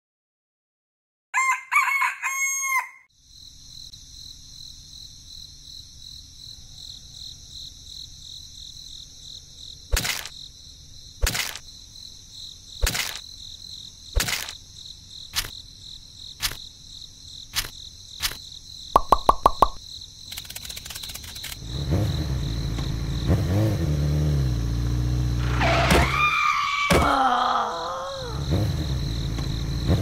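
A rooster crows once near the start. Then comes a steady high-pitched hum with sharp clicks about every second, and a quick rattle of strokes a little before twenty seconds. From about twenty-two seconds a motor runs loudly, its pitch shifting in steps.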